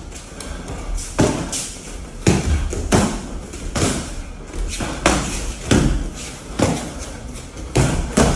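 Punches thrown with boxing gloves landing on gloves and body: sharp smacks about once a second, some in quick pairs.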